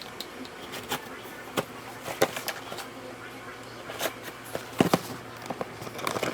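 Scattered, irregular clicks and knocks of small objects being handled, over a low steady hum.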